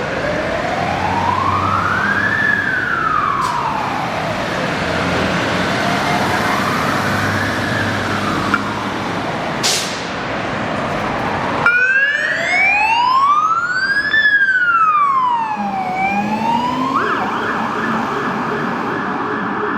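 Fire engine siren wailing, rising and falling slowly about every five seconds, over a low engine rumble. About twelve seconds in the sound jumps to a louder, clearer wail, which near the end changes to a steady high tone.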